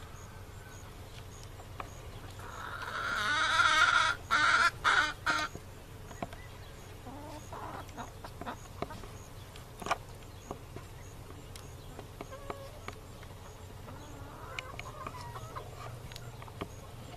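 A flock of free-range chickens clucking, with one loud, drawn-out call from a single bird lasting about three seconds a few seconds in, then softer scattered clucks.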